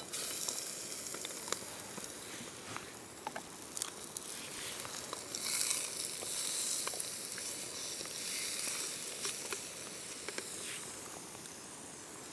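Steak and red onion sizzling in a frying pan on a camp stove: a steady hiss with scattered small crackles, swelling about halfway through and easing near the end.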